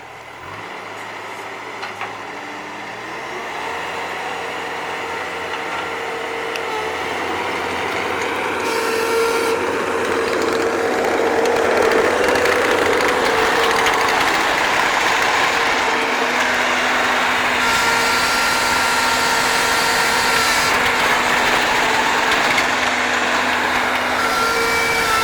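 Bobcat skid-steer loader running, growing louder over the first ten seconds or so and then holding steady, with a few high steady tones over the engine noise.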